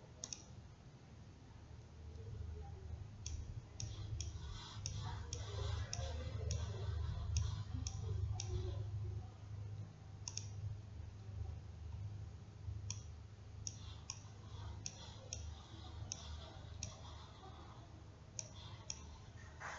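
Computer mouse clicking in irregular clusters as charts are switched and scrolled, over a steady low hum.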